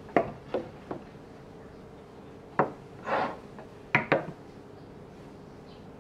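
A wooden tray set down on a wooden tabletop, then glass clip-top jars put down on the tray and shifted into place. There are a few sharp knocks near the start, a knock and a short scrape about three seconds in, and two quick knocks about four seconds in.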